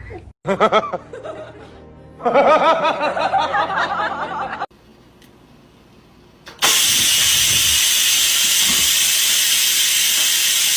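A cat's long, wavering meows, then, about six and a half seconds in, the loud steady hiss of an electric pressure rice cooker venting steam, starting suddenly.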